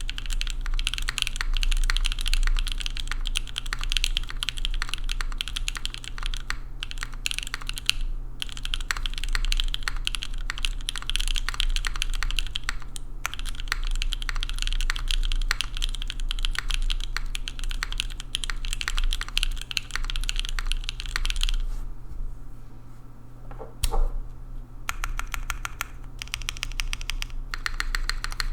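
Typing on a Singa Kohaku mechanical keyboard with factory-lubed Gateron Cream Soda linear switches on a carbon fiber plate under GMK keycaps: fast, steady keystrokes with a few short pauses. About three-quarters of the way through the typing stops for a few seconds, with one louder thump in the gap, then resumes in a quick, even run.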